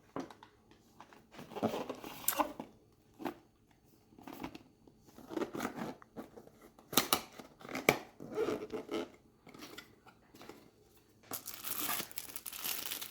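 Plastic packaging being handled and unwrapped: scattered rustles and clicks, turning into continuous crinkling of a plastic bag in the last couple of seconds.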